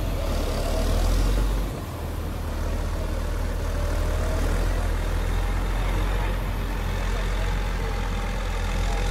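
Caterpillar 140K motor grader's diesel engine running under load as it passes, a steady low rumble, with crushed-rock gravel scraping and crunching under the moldboard blade and tyres.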